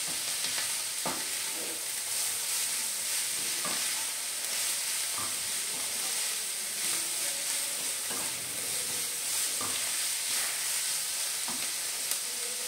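Shredded cabbage sizzling in a hot non-stick kadhai over a gas flame, with a wooden spatula scraping and tossing it every second or two.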